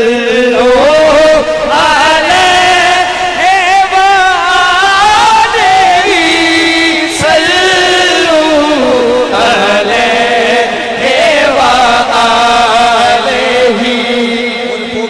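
A man's voice singing a long, drawn-out devotional naat line through a microphone, holding notes that waver and slide up and down. It fades near the end.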